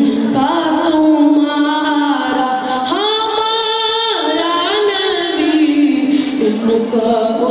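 A boy singing a naat, an Islamic devotional poem, solo into a microphone: one melodic voice moving through long, wavering held notes, with a note that rises and is held for about a second some three seconds in.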